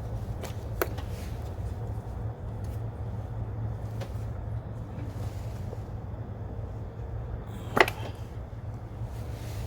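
Hand tools and ignition parts clicking and knocking during work on ignition coils and spark plugs: a few light clicks, with one sharper knock near the end, over a steady low hum.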